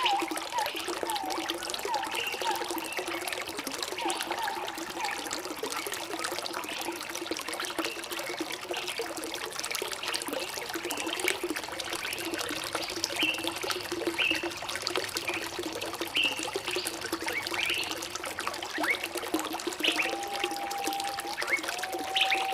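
Water trickling and pouring steadily, with short bird chirps scattered throughout and a few longer whistled notes near the end.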